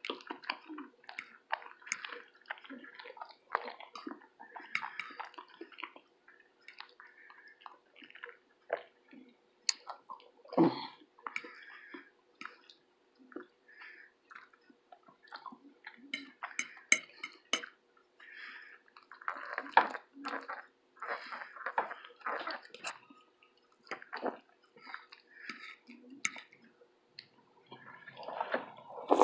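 Close-miked chewing and wet, sticky mouth sounds of a person eating syrup-soaked French toast: irregular smacks and clicks, busier about two-thirds of the way through.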